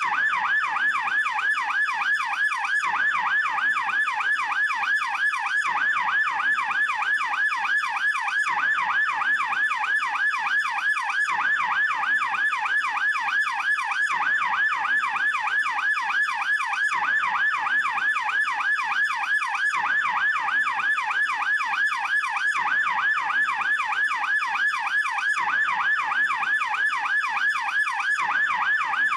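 German police siren in fast yelp mode: a steady, rapid rising-and-falling wail, about four sweeps a second.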